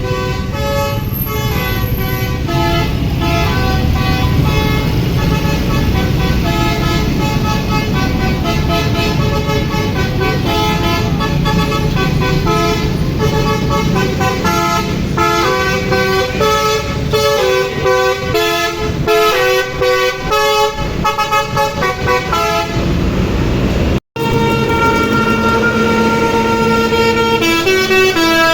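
Bus 'telolet' musical air horns playing a fast tune of short stepped notes over the rumble of bus engines. After a sudden cut about 24 seconds in, another bus's horn plays longer held notes that step in pitch.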